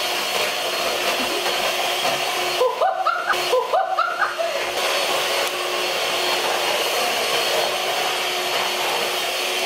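Handheld electric kitchen mixer running steadily, its whisk beaters whipping cake batter in a bowl. About three seconds in, a voice briefly makes a few short rising sounds over the motor.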